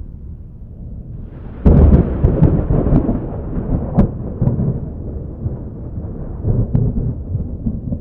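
Thunder with the bass boosted: a low rumble, then a sudden loud clap about a second and a half in. It rolls on with sharp crackles and slowly dies away into rumbling.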